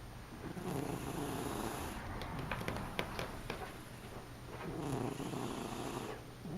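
A sleeping pet snoring: two long noisy breaths about four seconds apart, with a run of short clicking crackles between them.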